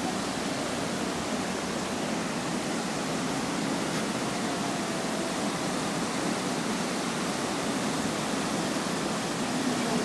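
Steady rushing of a waterfall and a river running over rocks in rapids.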